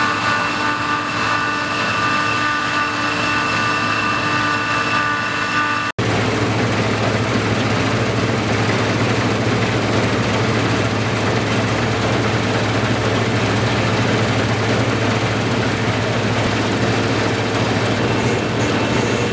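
Deutz-Fahr TopLiner 8 XL combine harvester running while cutting wheat: a steady engine drone with several steady whining tones from the machinery. About six seconds in, the sound cuts abruptly to a heavier, noisier hum with a strong low drone.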